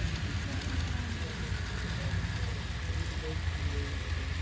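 HO scale model freight train running along the layout track with a steady low rumble. Faint voices of people talking can be heard underneath.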